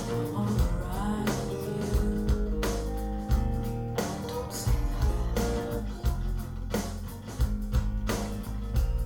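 Rock music played back through Q Acoustics 3020 bookshelf speakers: an instrumental passage with guitar, bass and drums keeping a steady beat, without vocals.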